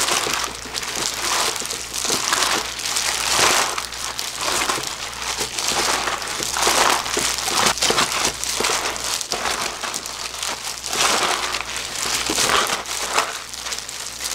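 Gloved hands mixing cut napa cabbage with seasoning paste in a stainless steel bowl: continuous irregular crinkling of the thin plastic gloves and rustling of the leaves as they are tossed and rubbed to coat them.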